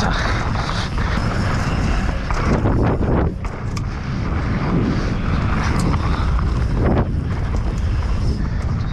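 Wind rushing over the microphone and tyres rumbling over a dirt trail as a downhill mountain bike descends at speed. Sharp knocks and rattles come from the bike over bumps several times.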